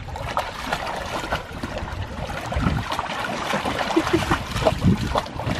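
Water splashing and sloshing in a plastic kiddie pool as two Labrador retrievers wade and paddle through it, in many short irregular splashes.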